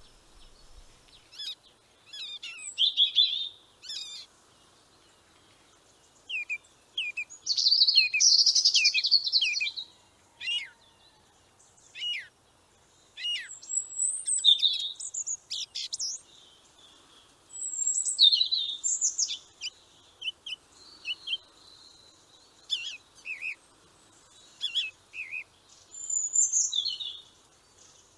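Small birds chirping: bursts of short, high, often downward-sliding calls and quick trills, with brief pauses between bursts.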